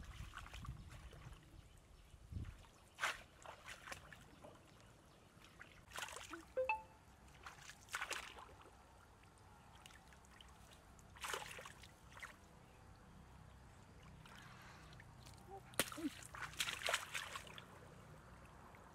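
Shallow muddy water splashing and sloshing in short bursts every few seconds, as hands and feet work through it and a bamboo plunge basket is pressed into the mud to trap fish.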